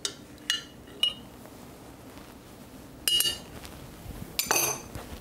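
Metal spoon clinking against a glass jar and a small bowl as butterfly pea flowers are scooped out of the kefir: three short clinks in the first second, then two longer ringing clinks about three and four and a half seconds in.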